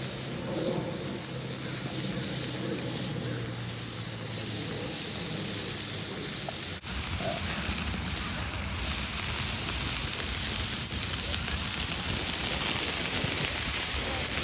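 Seafood steaming and sizzling on a hot metal griddle over a portable gas burner, a steady hiss. About seven seconds in the sound cuts abruptly to a brighter, even sizzle as juices spit on the griddle.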